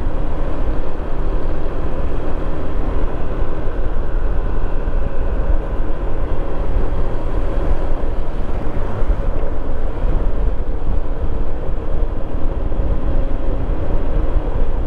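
A 2015 Honda PCX150 scooter riding at low speed, its single-cylinder engine running evenly under a steady low rumble of wind on the microphone. The sound holds constant throughout, with no sudden events.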